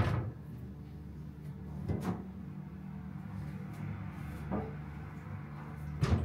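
A glass set down on a tray with a sharp knock, then a few more knocks and clunks like cupboard doors, the loudest near the end, over a steady low hum.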